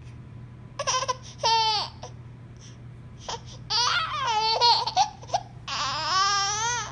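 A baby fussing and whining in three bursts of high-pitched, wavering vocalizing, the last one long and drawn out.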